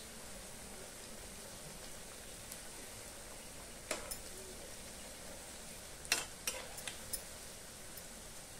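Moong dal pakoras deep-frying in hot oil in a steel kadai: a steady sizzle, with a few sharp clinks of the metal spatula against the pan as they are turned, once about four seconds in and several between six and seven seconds.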